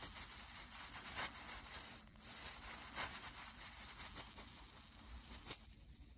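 Dry green floral foam crunching and crumbling as a metal bottle opener handle is pressed into it: a faint steady crackle with a couple of louder crunches.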